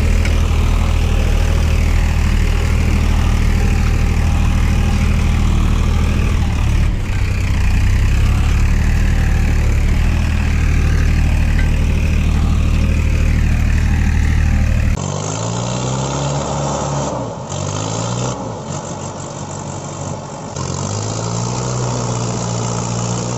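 Engine sound running steadily, then about two-thirds of the way through an abrupt change to a different engine recording that revs up and down several times.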